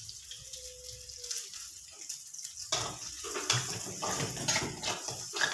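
Chopped onions and chilies sizzling in hot oil in a wok. From about three seconds in, a metal spatula stirring them, scraping and clattering against the wok over the sizzle.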